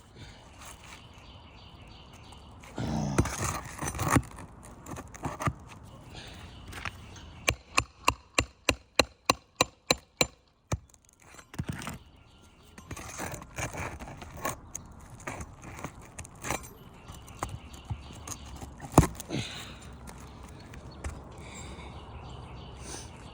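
A roofing tool being knocked in to work high-set nails out from under brittle asphalt shingles. It is heard as a quick run of about ten sharp, evenly spaced knocks, about three a second, midway through, with shingle scraping and rustling before it and scattered single knocks afterward.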